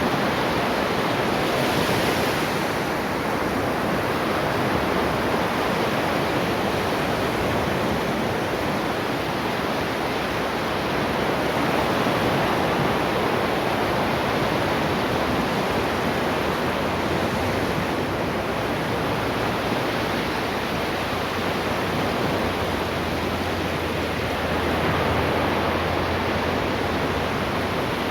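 Ocean waves washing on the shore: a continuous rush of surf that rises and falls slowly, swelling shortly after the start, about halfway through and near the end.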